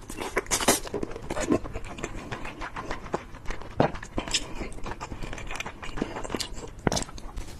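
Close-miked mouth sounds of chewing chicken sticks: irregular crisp clicks and crackles with an occasional louder bite.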